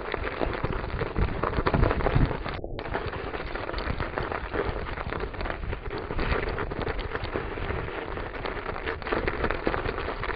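Dense, steady crackling and rattling from a mountain bike being ridden over a snow-covered track: tyres on snow and the bike shaking over the surface, with rushing wind on the microphone. Slightly louder near two seconds in.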